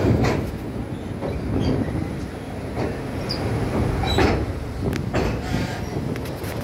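Express train running on the rails, heard from aboard: a steady low rumble of the wheels, with sharp clacks and knocks at uneven intervals.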